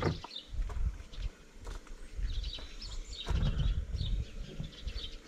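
Small birds chirping in short, quick calls over a low, uneven rumble, with a brief thump right at the start.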